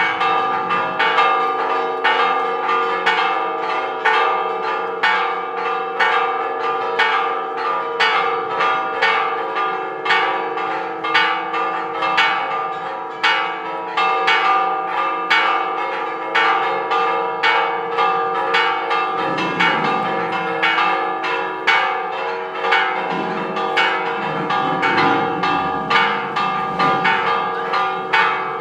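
Church tower bells ringing a Spanish repique: fast, even clapper strikes, about three a second, over the bells' sustained ringing.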